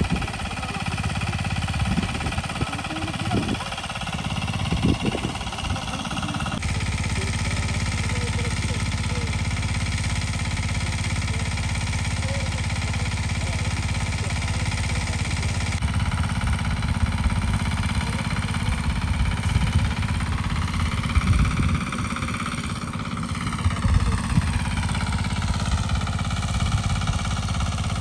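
Small stationary engine on the pond bank running steadily.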